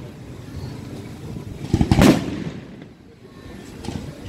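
Aerial fireworks display: one loud shell burst about two seconds in, its bang ringing on briefly, over a continuous low rumble.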